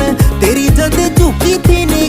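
Hindi-language pop song playing, with a heavy beat about twice a second under a melody.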